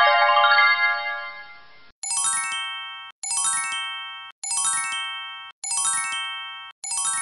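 A descending glissando of bright chime tones, then a synthesized chime sound effect struck five times, about every 1.2 seconds, each one ringing out and fading.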